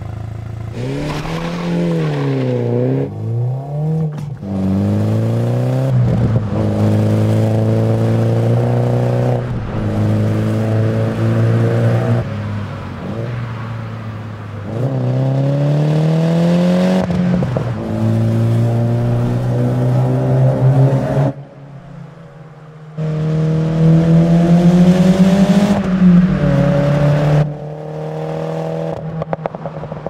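Mini John Cooper Works' turbocharged four-cylinder engine accelerating hard through the gears, its pitch climbing and then dropping sharply at each upshift, with a few quick throttle blips. It goes quieter for a second or two about two-thirds through, then pulls hard again.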